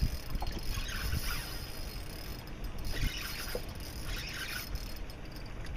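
Wind rumbling on the microphone and sea water washing along the hull of a small boat, with a few short hissing splashes.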